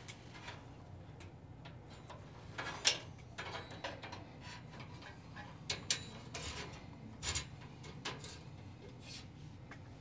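Network cables being handled and pulled through a rack-mounted pass-through patch panel: scattered clicks, taps and rustles of cable jackets against the metal rack, the sharpest about three seconds in and twice more near six and seven seconds, over a low steady hum.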